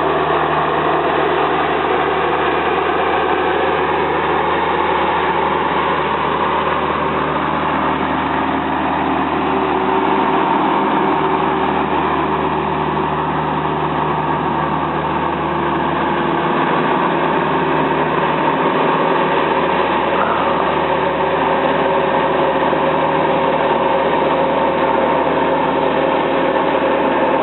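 Engines of heavy snow-clearing machinery running steadily, with a slow shift in pitch a few seconds in as the machines work.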